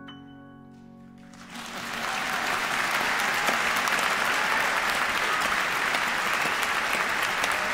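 The last piano chord dies away, then audience applause swells up about a second and a half in and holds steady and loud.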